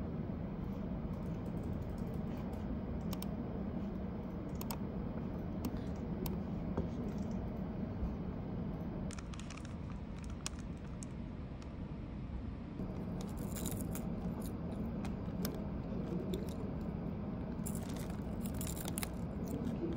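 Steady low office hum with scattered light clicks, and a few spells of plastic crinkling about halfway in and near the end: seaweed snack packets being handled.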